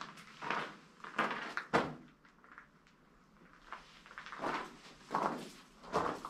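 Footsteps: a few steps roughly half a second apart, a pause of about two seconds, then a few more steps.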